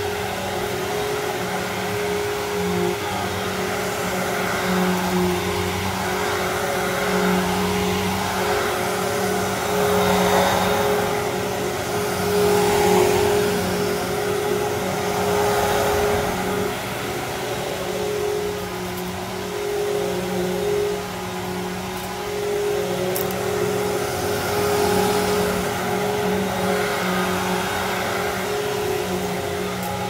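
Riccar Vibrance Classic upright vacuum cleaner running on carpet: a steady motor hum with a rushing airflow noise that swells and eases as it is pushed back and forth.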